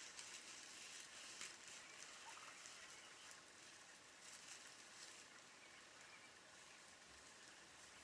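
Near silence: faint outdoor ambience with a soft, steady hiss.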